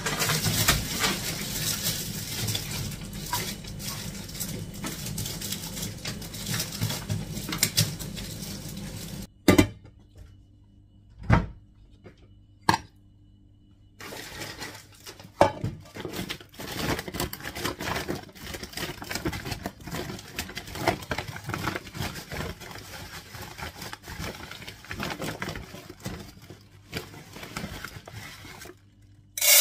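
Kitchen handling sounds: plastic food packaging rustling and crinkling as items are moved about on the counter. About a third of the way in there is a quiet stretch with three sharp knocks, then the rustling and clatter resume, and near the end a large plastic bag of rice rustles loudly.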